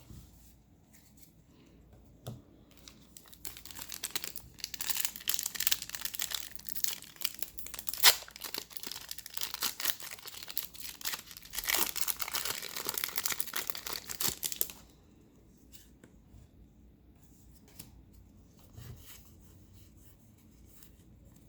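Foil Pokémon TCG booster pack wrapper being torn open and crinkled, a run of crackly tearing and rustling with one sharp snap about eight seconds in, stopping about fifteen seconds in.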